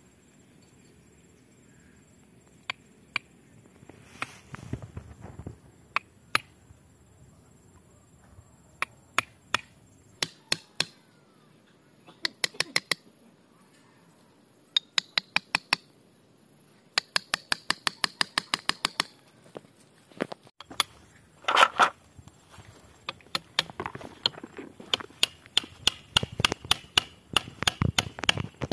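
A large knife blade chopping and tapping into the woody roots of a Ficus microcarpa, trimming back overgrown roots: sharp ticks and knocks, some in quick runs, with one louder knock about three-quarters of the way through.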